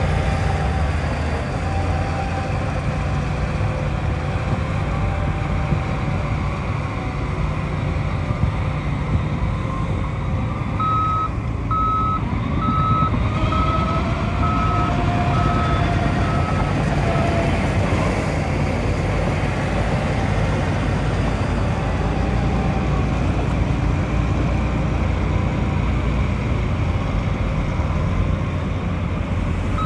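Heavy diesel construction machinery running steadily. Partway through, a reversing alarm beeps about one and a half times a second for several seconds, then stops.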